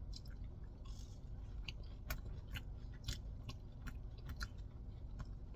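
A person chewing a crinkle-cut french fry up close: faint, irregular crunches and mouth clicks over a low steady hum.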